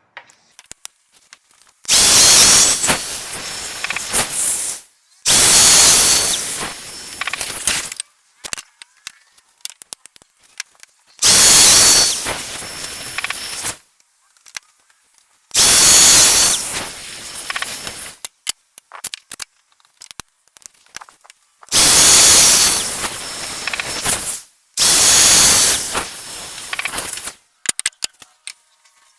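Domino joiner motor starting up and plunge-cutting mortises in wood, six runs of a few seconds each, each loudest at the start and then settling lower, with short clicks and knocks of handling between them.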